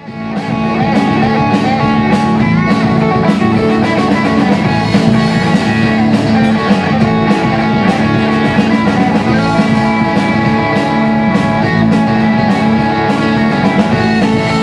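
Rock band playing: electric guitars and an electric bass over a drum kit, with regular drum and cymbal hits.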